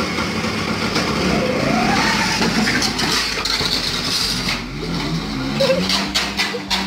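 Vespa-style scooter engine revving, with a run of sharp knocks and clatters in the last two seconds.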